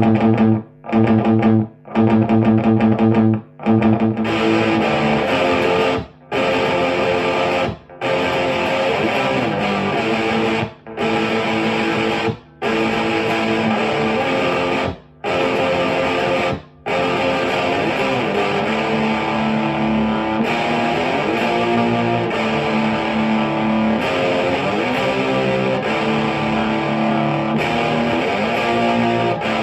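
1986 Jackson Soloist Custom electric guitar with a Seymour Duncan pickup, played through a Marshall JCM900 4502 combo amp with Celestion G12T-75 speakers. It opens with short chord stabs cut off sharply, then longer riffs broken by brief stops, and in the second half continuous lead playing with bent notes.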